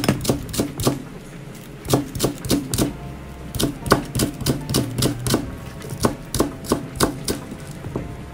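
Kitchen knife finely slicing green onion on a cutting board: a run of crisp taps of the blade meeting the board, about three a second, with a short pause about a second in.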